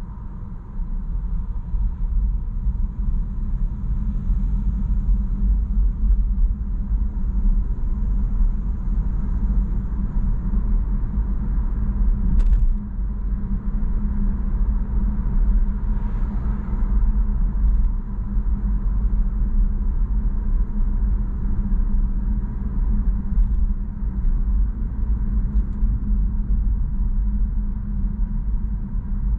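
A car driving in city traffic, heard from inside the cabin: a steady low engine and road rumble that grows louder about a second in as the car gets moving. A brief click sounds about twelve seconds in.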